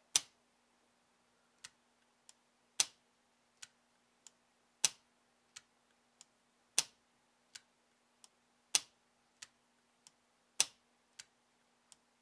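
Stainless .357 Colt Python revolver dry-fired in double action six times, about every two seconds. Each trigger pull gives two light clicks as the cylinder bolt drops and locks into its notch, then the sharp snap of the hammer falling. The action times correctly, with a little drag because it needs cleaning.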